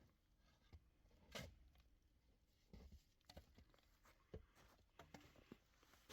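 Near silence broken by a few faint, scattered clicks and knocks, the clearest about a second and a half in.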